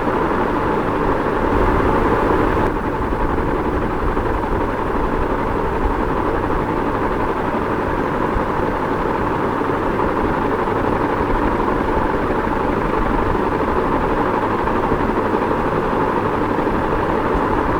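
Ceiling fan running steadily: an even whir of moving air over a low, unsteady rumble, briefly a little louder about two seconds in.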